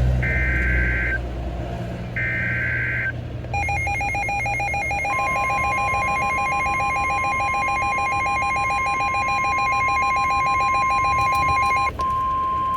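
Emergency Alert System tones from a NOAA Weather Radio broadcast: two short screechy digital data bursts, then a rapidly pulsing electronic beep. About five seconds in, the steady single-pitch weather radio warning alarm tone joins it, the signal that a warning message follows.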